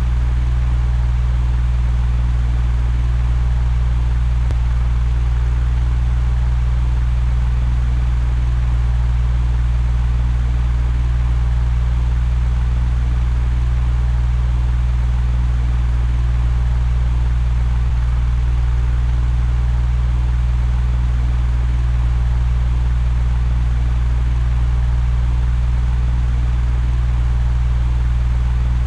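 Electric fan running steadily: a constant low hum with an even airy hiss above it.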